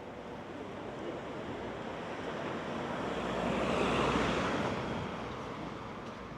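A rushing, noise-like sound that swells to a peak about four seconds in and then dies down again.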